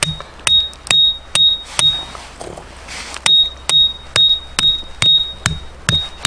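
A hammer striking a metal tent peg over and over, about two blows a second, each blow ringing with a short high ping. There is a pause of about a second partway through.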